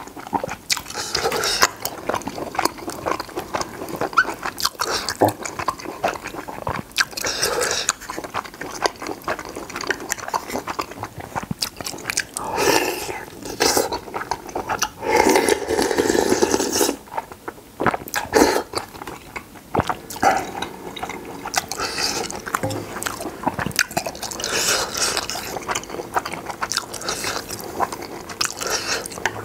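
Close-miked eating of cheesy spicy ramen: wet chewing with many small mouth clicks, and two longer noisy stretches about halfway through where noodles are slurped in.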